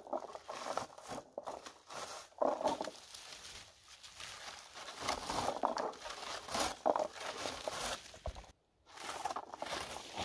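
Irregular rustling and crackling of low wild blueberry (bilberry) bushes as the leafy stems are stripped by a gloved hand and a handheld berry-picking scoop, with a short break a little past eight seconds.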